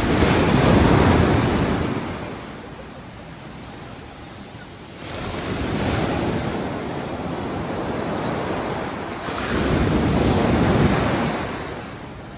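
Ocean waves surging and breaking. A loud wave at the start fades after about two seconds. After a lull the sea builds again about five seconds in, to a second loud wave near the end.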